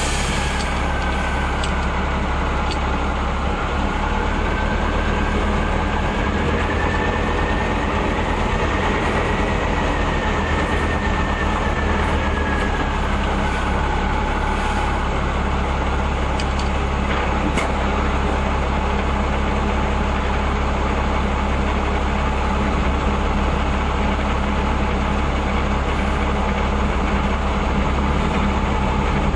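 M35 'Reo' 2.5-ton army truck running steadily under a heavy low drone. A high whine drifts slowly up and down in pitch over it. A brief clatter sounds at the very start.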